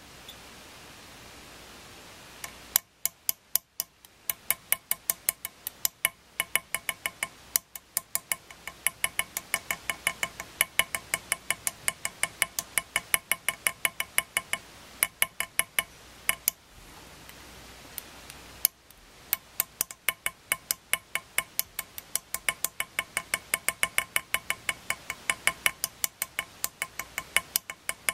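Small chasing hammer tapping a steel chasing punch held on a metal relief set in pitch, striking fine surface texture. The taps are quick and evenly spaced, about three to four a second, each with a brief metallic ring. They begin a few seconds in and pause for about two seconds a little past halfway.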